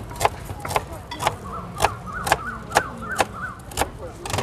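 Cleaver-style knife chopping crispy pork belly on a plastic cutting board: a steady run of sharp strikes, about two a second.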